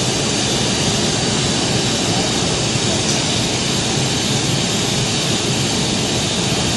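Steady, loud rushing noise of running machinery, even throughout with no rhythm or clear pitch.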